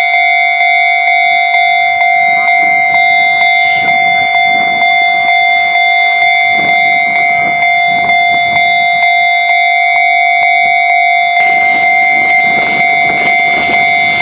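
Japanese level-crossing warning bell ringing loud and steady, a ringing tone struck a little under twice a second. About eleven seconds in, the rumble of an approaching train rises beneath it.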